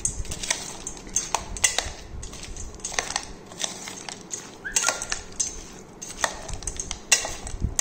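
A metal spoon scraping and clinking against a stainless steel bowl in irregular strokes, stirring a salad of chopped raw vegetables and crunchy fried snacks.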